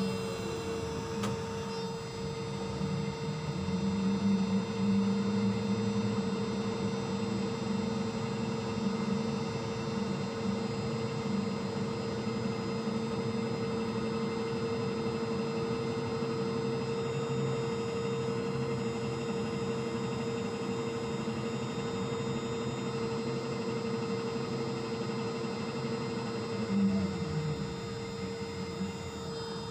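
Ship's deck crane machinery humming steadily, heard from the operator's position, with one constant tone and a lower drone that swells a few seconds in and again briefly near the end as the crane is worked.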